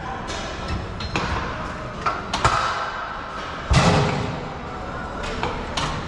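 Scattered sharp metal clanks and knocks of gym weights and machines, with one heavier thud about four seconds in, over a steady background din.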